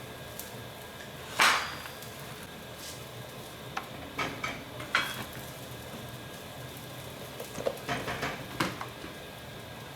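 Diced onions sweating in a frying pan with a steady sizzle, while a utensil stirs them and knocks against the pan several times, loudest about one and a half seconds in and in a cluster near the end.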